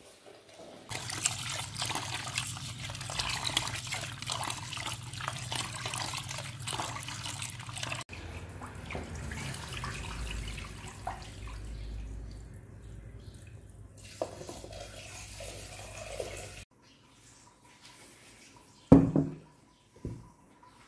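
Tap water running into a metal cooking pot and spilling out onto a tiled floor as the pot is rinsed, heard in two stretches cut one after the other. Near the end, a couple of short knocks as the pot is set down on a wooden block.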